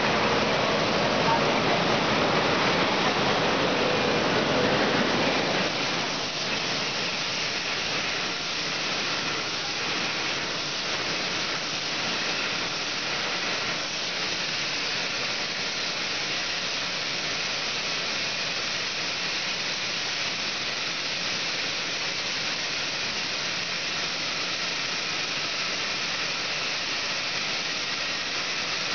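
Water-bottling monoblock running, with a steady rushing hiss of water as its rotary filler valves fill 5-litre PET bottles with still water. The hiss is somewhat louder for the first five seconds or so, then settles a little quieter and even.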